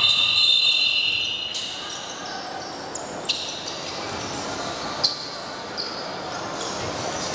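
A referee's whistle blown in one long, high blast, stopping play; it ends about a second and a half in. After it, a few sharp knocks from a basketball bouncing on the hardwood court, echoing in the large gym.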